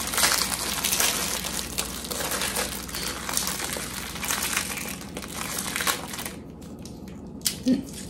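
Plastic fortune-cookie wrappers crinkling and crackling as they are torn open, with the crisp cookies crunching. It goes on for about six seconds and then dies down, with a couple of small sounds near the end.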